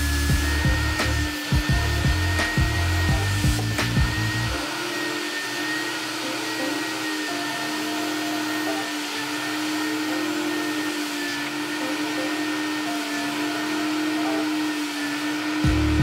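Steady whir of a carpet extractor's vacuum motor as its wand is drawn over a wet floor mat, under background music. The music's bass beat drops out about four and a half seconds in and comes back near the end.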